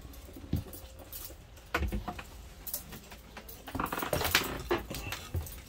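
Scattered light knocks and clicks, with a denser run of small rattling clicks about four seconds in.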